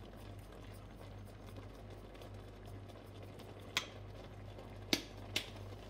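Squid rings simmering in a stainless steel pot, a low steady bubbling under a faint hum. Three sharp clicks come in the last two seconds, the middle one the loudest.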